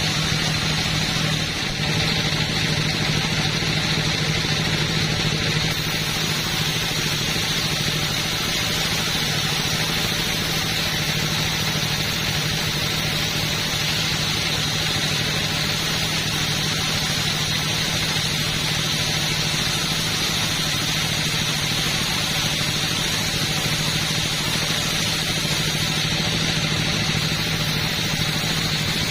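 Two-stroke chainsaw running steadily at a high, unchanging pitch.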